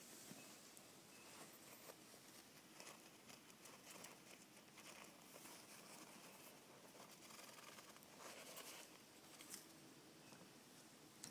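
Near silence with faint, scattered rustling and scratching of a hamster moving about in crumpled paper-towel bedding.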